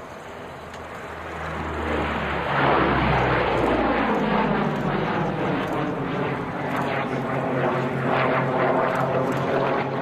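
A P-38 Lightning fighter's twin Allison V-12 engines as the aircraft flies past: the engine sound builds over the first two seconds or so, then its pitch falls as it passes, and it stays loud afterwards.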